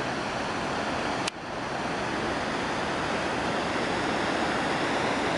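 Steady rushing roar of falling water from a waterfall, with a sudden brief break about a second in.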